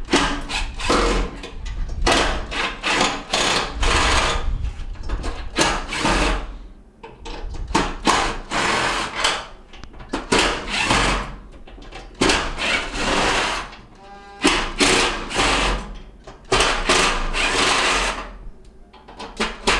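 Cordless drill backing out the screws that hold the gas burners to the cooktop. It runs in about ten short runs of a second or two each, starting and stopping as it moves from screw to screw.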